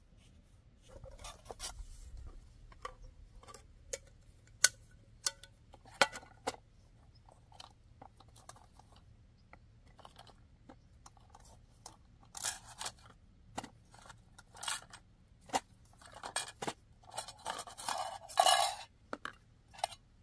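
Metal cookware being handled and set down: a large wok, a pot and bowls clink, knock and scrape as they are placed around a portable gas stove. The sharpest knocks come about five and six seconds in, with a longer run of scraping near the end.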